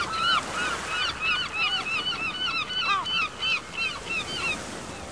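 Gulls calling together in a rapid run of short, arched, high cries, several a second, that stop near the end.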